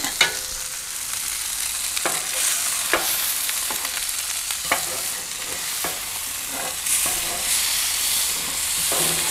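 Cheese-stuffed beef burger patties sizzling on a hot griddle plate as they are turned with two metal spatulas. A handful of sharp clicks and scrapes come from the spatulas on the plate.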